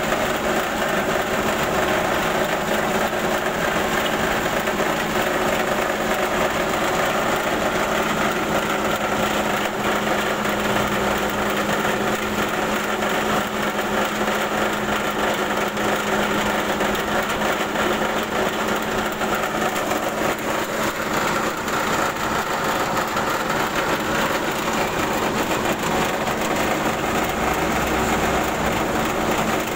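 KD 100 rice huller (selep padi) fitted with a bran sieve, running steadily while milling rice: a dense, even mechanical din with a constant hum beneath it.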